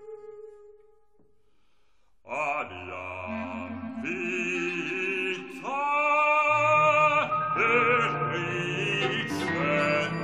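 Contemporary chamber music for bass voice, clarinets, flutes, guitar, violin and piano. Held notes die away into a brief silence, then the ensemble enters about two seconds in with sustained, overlapping notes, some wavering, growing louder about six seconds in.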